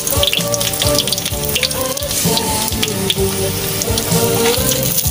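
Pieces of pekasam (fermented sultan fish) frying in hot oil in a wok with sliced shallots, with an irregular crackle and spatter, under background music carrying a melody.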